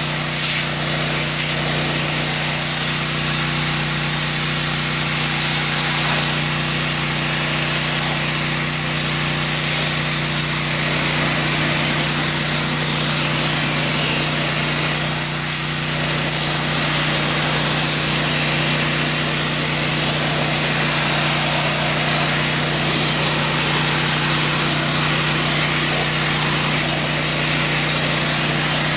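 Pressure washer running steadily: a constant machine hum under the loud hiss of the high-pressure water jet spraying against wooden log walls.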